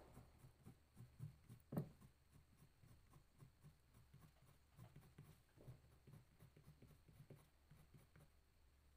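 Faint scratching of a green crayon on drawing paper, many short quick strokes a few times a second as palm leaves are filled in, with one sharper tick about two seconds in.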